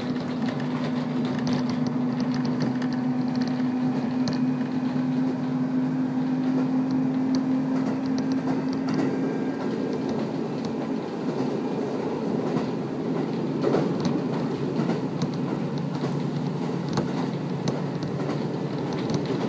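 KiHa 54 diesel railcar running along the line, heard from inside the car. A steady low engine hum fades out about halfway through, leaving the rumble of wheels on rail with a few sharp clicks from the track.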